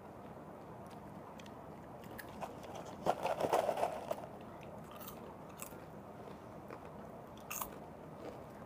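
Caramel popcorn being eaten close to the microphone: scattered faint crunches of chewing. About three seconds in comes a louder, second-long rustle and crunch as a hand digs into the clear plastic popcorn cup.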